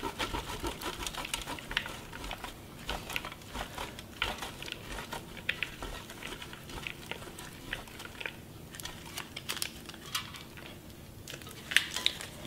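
Block of cheddar cheese being grated on a stainless steel box grater over a plastic bowl: faint, irregular rasping strokes.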